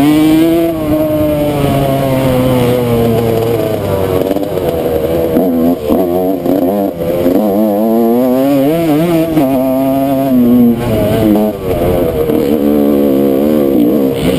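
Yamaha YZ125 two-stroke single-cylinder dirt-bike engine running under load, revving up and falling back again and again. There are a few brief dips where the throttle comes off, about five, seven and eleven seconds in.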